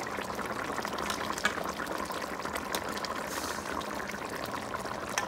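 Fish sauce simmering in a pan, bubbling steadily while a metal spoon ladles the sauce over the fish. A couple of light clicks come through, about a second and a half in and near the end.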